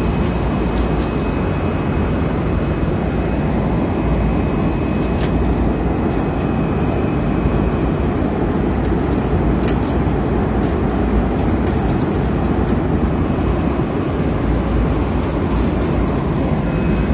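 Steady cabin noise inside a Boeing 777-300 airliner: an even rumble of engine and air noise, strongest in the low end, with a faint steady high tone over it.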